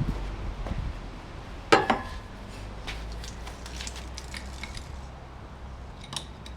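Metal clinks and knocks of hand tools working on the chipper shredder's metal parts, with one sharp knock just under two seconds in, a run of lighter ticks after it and another clink near the end.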